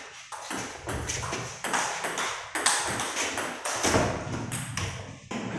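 Table tennis rally: a celluloid-type ball struck back and forth by rubber-faced bats and bouncing on the table, a quick series of sharp clicks and pocks ringing in the hall.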